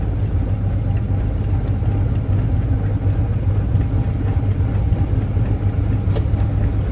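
Engine of a wooden river cargo boat running steadily under way, a loud, even low drone.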